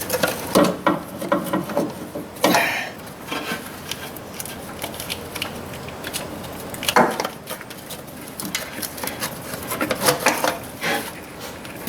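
Irregular knocks, clicks and clatter of metal against metal as a replacement starter motor and hand tools are worked into place on the engine, with a few louder knocks among them.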